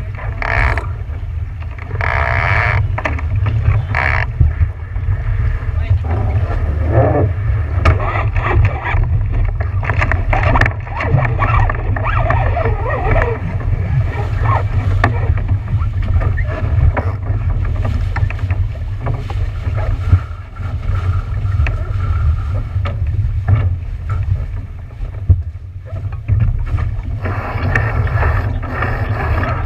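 Wind buffeting the microphone as a steady heavy rumble over the sound of a boat moving through water, with muffled voices now and then.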